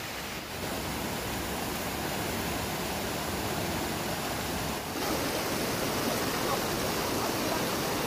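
Shallow, rocky mountain river rushing over and around boulders in small cascades: a steady rush of water, with a brief dip about five seconds in.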